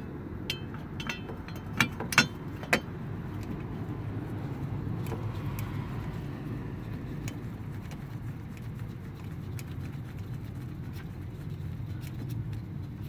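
A handful of sharp metallic clinks in the first three seconds, the loudest about two seconds in, as metal parts or tools are handled, over a steady low rumble.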